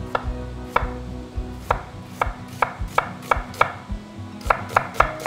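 Chef's knife slicing an onion into thin strips on a wooden cutting board: quick knocks of the blade on the board, about three a second, with a short break about four seconds in.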